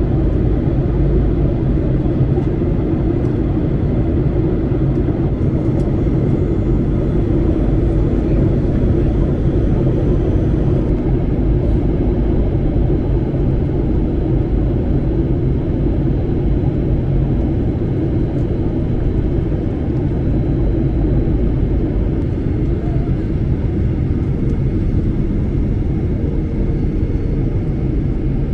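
Steady drone of jet engines and rushing air heard inside an airliner cabin in flight, with a faint steady whine on top.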